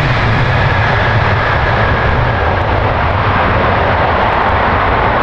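Large jet airliner's engines running loud and steady, a dense rush of noise over a deep rumble, with a faint high whine that fades out about halfway through.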